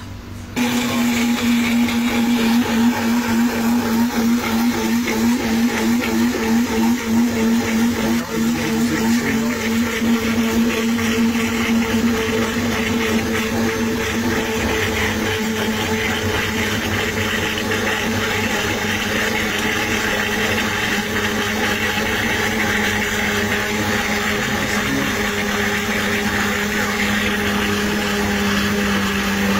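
Countertop blender running, blending eggs, herbs and vegetables into a sauce while oil is poured in. The motor starts about half a second in. Its hum wavers for roughly the first ten seconds, then steadies and sinks slightly in pitch.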